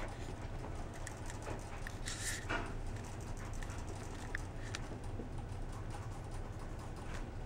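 A pet rabbit moving against a person's jeans: soft rustling of fur on denim and a few light clicks, with a brief louder rustle about two seconds in, over a steady low hum.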